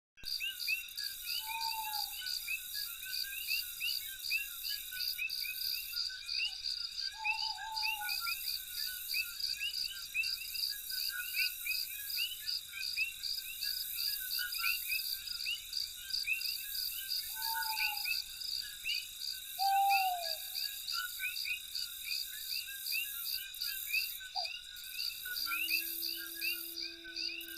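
Night chorus of crickets and other insects: a steady high trill with rapid pulsed chirping over it, and a few short, lower, falling calls from another animal at several points. Near the end, held low tones like music come in.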